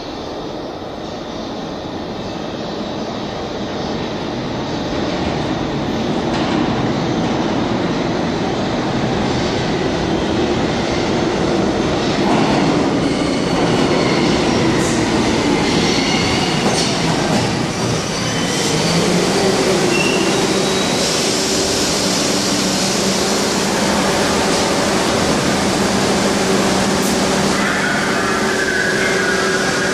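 A New York City Subway train, an R62, running into an underground station. Its rumble grows louder over the first dozen seconds. Then wheel and brake squeal sets in as it slows and rolls to a stop beside the platform, with a higher squeal near the end.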